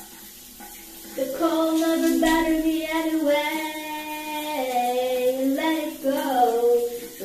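A woman singing a melody in long held notes, starting about a second in, over the steady hiss of a running shower.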